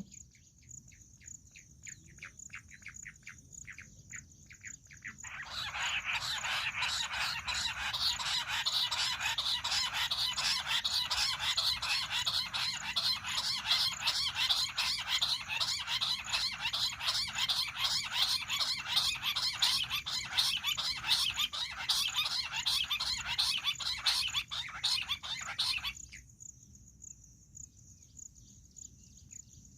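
Bush quail calling: faint repeated calls, then about five seconds in a loud, fast run of rapid repeated chattering notes that goes on for about twenty seconds and stops abruptly, leaving faint calls again.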